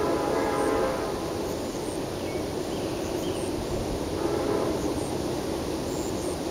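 Distant train horn: a blast ending about a second in and a fainter one a few seconds later, over the steady rumble of the train passing.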